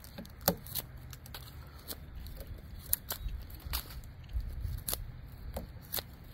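Scandi-ground bushcraft knife blade chopping and cutting into the bark and wood of a log, a series of sharp, irregularly spaced cracks as the edge bites in and chips break away.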